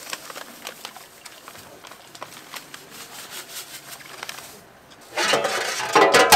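Faint crackling and rustling as a plastic pouch of paste is squeezed out into a steaming pot. About five seconds in, a loud metallic clatter with ringing tones from a large aluminium cooking pot and its lid being handled.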